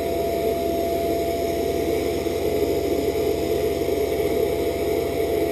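6040 CNC router running, its 1500 W water-cooled spindle giving a steady whine over a dense mechanical hum.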